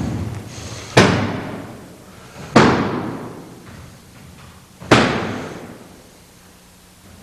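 Four heavy slams of bodies hitting the mat in judo-style breakfalls or throws: one right at the start, then about a second in, two and a half seconds in and five seconds in. Each rings out in an echoing hall.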